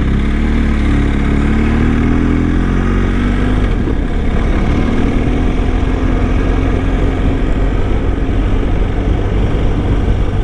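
BMW R1250 boxer-twin motorcycle engine under way, its pitch rising over the first few seconds as the bike accelerates, then holding steady at cruising speed, with steady wind rush on the helmet microphone.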